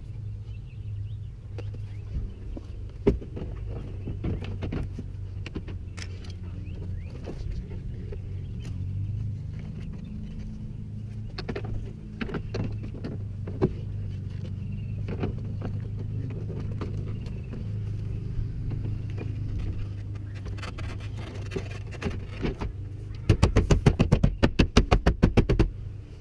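Knocks and clicks of a car door panel and its parts being put back together, over a steady low hum. Near the end comes a fast even run of loud clicks, about eight a second, for two or three seconds.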